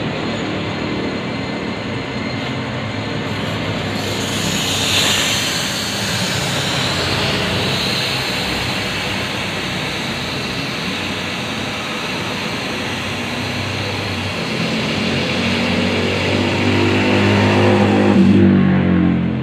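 Metal lathe running with a long steel shaft spinning in its chuck, a steady low hum. From about four seconds in, abrasive paper held against the turning shaft adds a steady hiss as the shaft is polished. The hiss stops just before the end.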